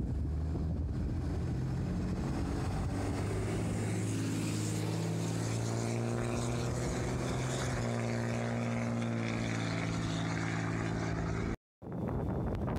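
A steady low engine drone with a few held tones that shift slightly in pitch, mixed with wind noise on the microphone. It cuts out for a moment about a second before the end, then resumes.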